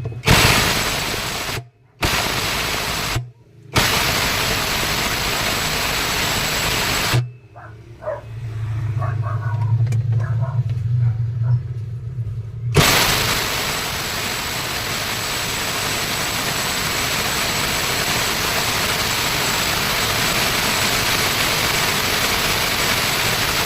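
Power tool run in several short bursts, then held on for a long stretch in the second half, with a thin high whine over its noise, working at a seized part of a washing machine. In the gap between runs a low hum is heard.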